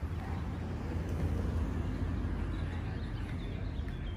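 City street ambience: a steady low rumble, with faint bird chirps coming in past the middle.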